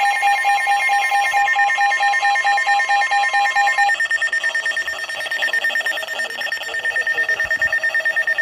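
NOAA Weather Radio receiver sounding an alert: a steady alarm tone under a rapid electronic beeping. About four seconds in the steady tone stops, and the beeping carries on at a slightly different pitch.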